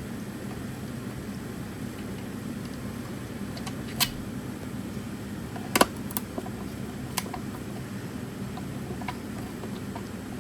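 Steady low hum with a few sharp clicks and knocks from a computer speaker's plastic parts and tools being handled during disassembly: one about four seconds in, a close pair near six seconds, and a lighter one just after seven.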